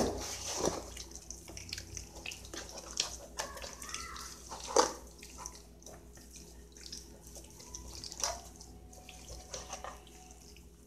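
Soft wet squelching and smacking of hands kneading seasoning into a raw beef joint, irregular strokes with a sharper smack at the start and another about five seconds in.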